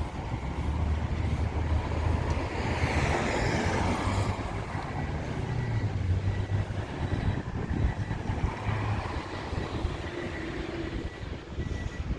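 Outdoor road noise with low wind rumble on the microphone; a vehicle passes, swelling and fading, about two to four seconds in.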